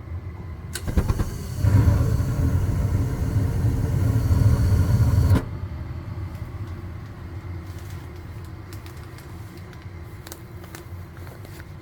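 Gas furnace cycling: a click, then the burner lights with a loud low rumble that runs about three and a half seconds and cuts off suddenly, leaving a quieter steady hum. The burner shutting down within seconds is short-cycling, which the owner traced to a dirty flame sensor.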